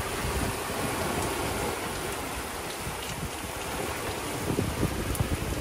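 Seawater rushing and churning past a sailing catamaran's hull, with wind buffeting the microphone.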